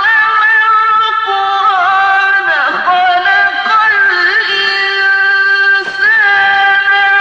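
A man's voice chanting Quran recitation in long, held notes with ornamented turns in pitch, pausing briefly about six seconds in.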